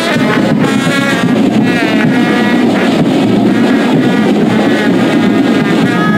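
Loud, steady wind noise buffeting the microphone, with music faintly underneath.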